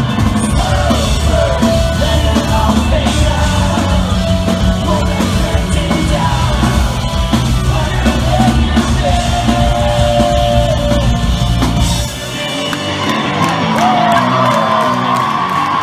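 Live rock band playing loud with singing, recorded from within the crowd. About twelve seconds in, the drums and bass drop out and crowd yelling comes through over the remaining instruments.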